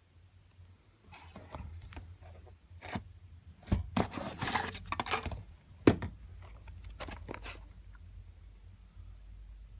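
Product packaging being handled: scattered rustling and scraping of the boxes, a longer rustle in the middle, and two sharp knocks.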